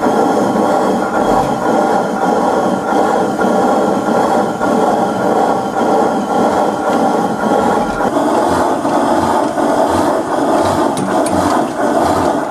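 Loud, steady mechanical clatter of old stationary engine machinery. From about eight seconds in, a regular low thump comes roughly one and a half times a second.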